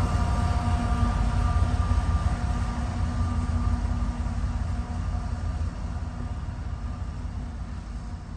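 GE ET44AH diesel-electric locomotive at the rear of a coal train moving away: a low engine rumble with a steady whine, fading steadily as it recedes.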